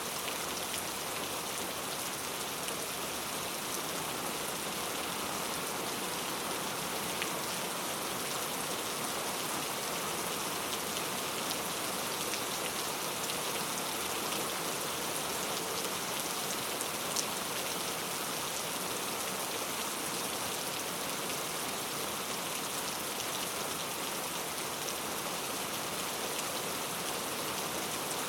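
Steady rain falling and pattering on surfaces, an even hiss with scattered drop ticks; one drop lands a little louder about 17 seconds in.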